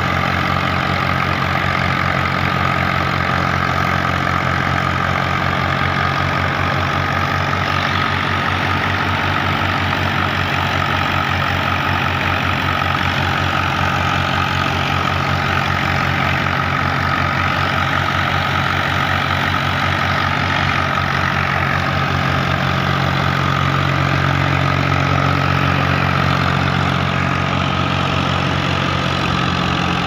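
Ghazi tractor's diesel engine running steadily, driving a wheat thresher, with the thresher running over the engine's beat. A little louder for a few seconds near the end.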